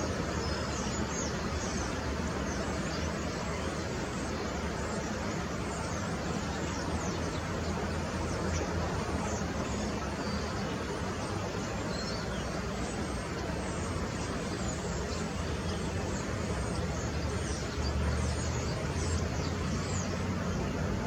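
Steady outdoor background noise: a low rumble and hum, with faint high chirps scattered through it. It grows a little louder near the end.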